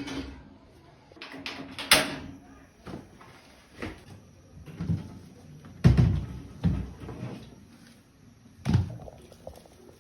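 Kitchen clatter: a handful of separate knocks and thuds, such as cupboard doors and cookware being handled, spaced a second or two apart, the loudest about two seconds in and near the middle.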